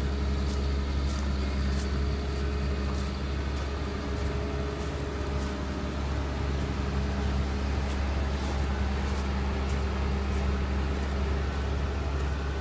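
Komatsu PW180 wheeled excavator's diesel engine running at a steady speed, a constant low drone.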